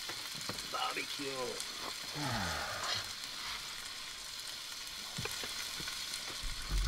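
Food sizzling steadily in a frying pan on a camp stove.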